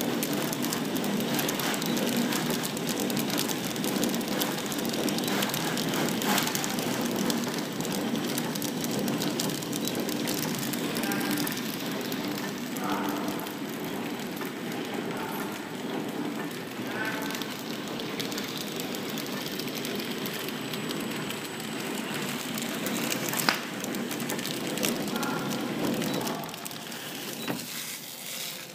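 Horizontal flow-wrap packing machine running: a steady mechanical clatter from its drive, conveyor and sealing and cutting jaws, with a few sharp clicks. It goes quieter near the end as the machine stops.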